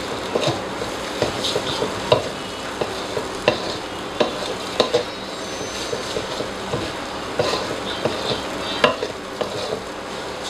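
Instant noodles sizzling in an aluminium wok over a low flame while being stir-fried, the spatula scraping and knocking against the pan every half second or so.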